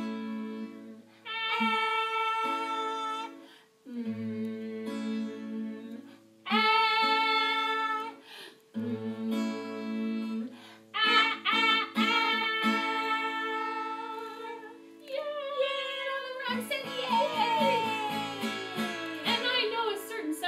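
Acoustic guitar strummed and picked as women sing a children's song in phrases, with short pauses between them. Near the end a long glide falls in pitch.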